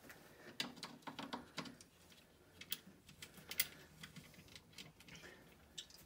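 Light, irregular clicks and taps of metal and plastic parts as a washer-dryer's drum motor is pushed back into its mounting and a bolt is fitted into its lug.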